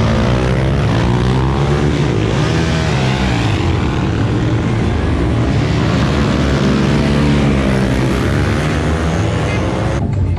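Several mid-displacement motorcycle engines revving loudly, their pitch climbing and dropping over and over and overlapping one another.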